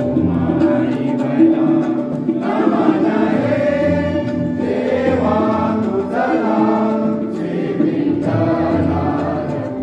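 A group of voices singing a devotional prayer song in chorus over a steady held note, in phrases that rise and fall.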